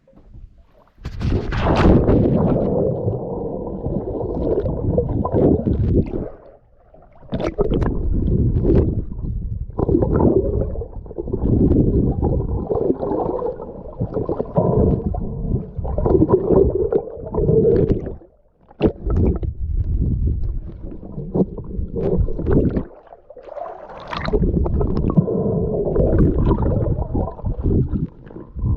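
Muffled water sloshing and gurgling around a camera in a waterproof housing as a snorkeler swims, in long low surges broken by a few brief lulls.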